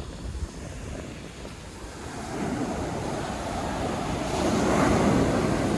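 Atlantic Ocean surf breaking on the beach, the wash swelling louder from about two seconds in, with wind rumbling on the phone's microphone.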